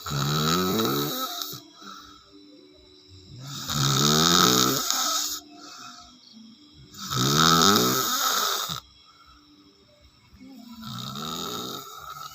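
Loud, rough snoring: four long snores at a steady breathing rhythm, about three and a half seconds apart, the last one weaker.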